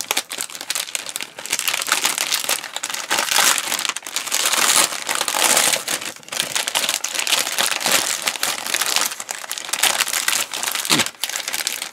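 Thin clear plastic bag crinkling and crackling as a plastic model kit sprue sealed inside it is handled and turned over.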